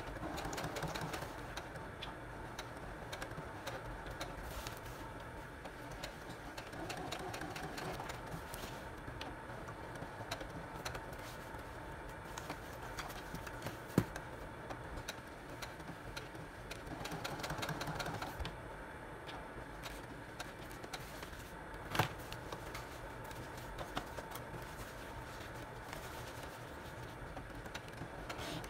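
Brother Project Runway electric sewing machine stitching patches onto a leather vest, its needle ticking rapidly and growing louder in a few stretches. Two sharp clicks stand out partway through.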